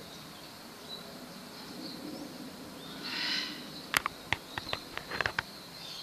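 Golden-headed lion tamarins calling: a brief buzzy call about three seconds in, then a quick run of about eight sharp, high chirps over a second and a half.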